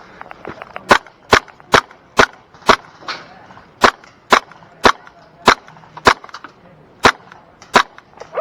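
Airsoft guns firing single shots, about a dozen sharp cracks at an uneven pace, with fainter clicks from shots farther off.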